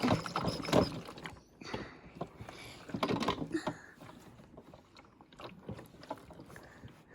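Toy washing machine running a wash, with irregular small plastic clicks and knocks.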